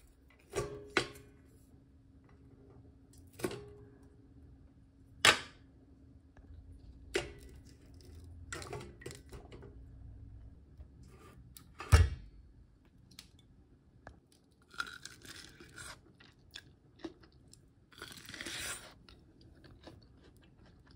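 Sharp clinks and knocks of utensils against a stainless-steel steamer pot as steamed corn cobs are lifted out, seven or so scattered strikes with the loudest about halfway through. Near the end come two longer crunching, tearing noises of bites into a corn cob.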